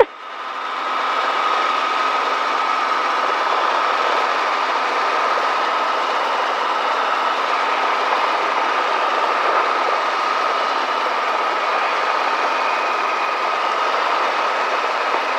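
Helicopter engine and rotor noise inside the cockpit while hovering just after lift-off: a steady, even din with a constant whine in it, building up over the first second and then holding level.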